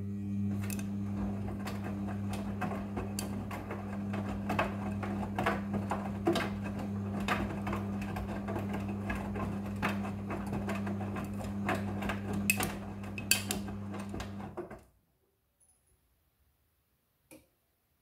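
Midea front-loading washing machine's drum tumbling wet laundry in the wash stage: a steady motor hum with irregular clicks and knocks of clothes and water dropping inside the drum. It stops suddenly near the end as the drum comes to rest.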